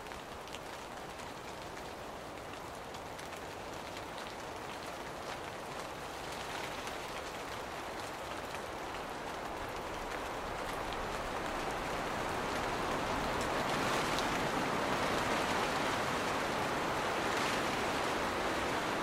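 A steady hiss of rain with faint scattered drop ticks, slowly growing louder.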